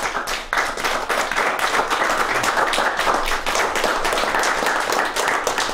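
A small audience applauding: many hands clapping together in a steady, dense patter that breaks out at once and keeps going.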